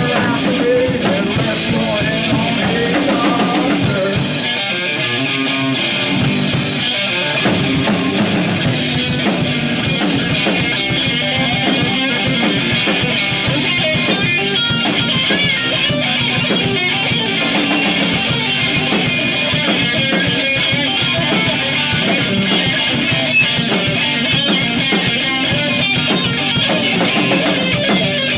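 Live rock band playing: electric guitar, electric bass and drum kit together at a steady, full level.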